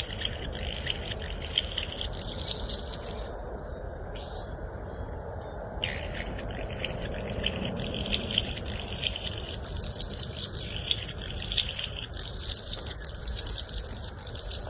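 Restless flycatcher giving its grating 'scissor grinder' call: fast runs of short, harsh, repeated high notes. The calling breaks off for about two seconds a few seconds in, then resumes.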